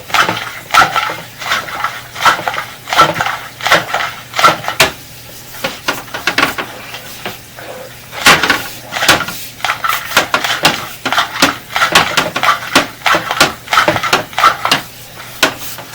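Irregular clattering and knocking as a sewer inspection camera and its push cable are forced along a drain line against resistance, with a steady low hum underneath.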